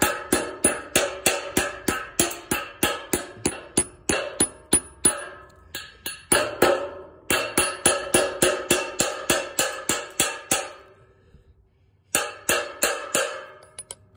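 Hammer repeatedly striking the top of a steel wedge-type concrete anchor bolt, driving it into its drilled hole in the concrete, about three ringing metallic blows a second in three runs with short pauses between. The nut sits about 1/8 inch below the bolt's end, so the hammer hits the bolt, not the nut.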